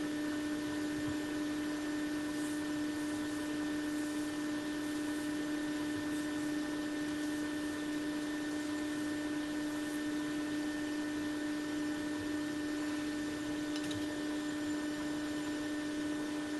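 Steady electrical hum from repair-bench equipment: a constant low buzz with fainter higher overtones, unchanging throughout, with a few faint ticks.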